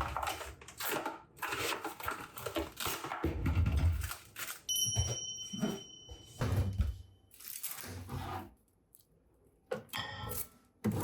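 Kitchen handling noises: containers and utensils knocked, set down and rustled in irregular clatters. A thin steady electronic tone sounds for a couple of seconds a little past the middle.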